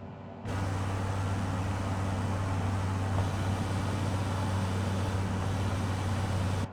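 Light aircraft cockpit noise: a steady engine hum with airflow hiss. It starts suddenly about half a second in and cuts off abruptly near the end.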